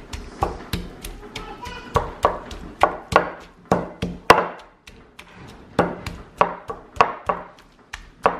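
Stone pestle pounding chilies and tomato wedges in a stone mortar: sharp knocks of stone on stone through the wet ingredients, about two a second, with a short pause about halfway.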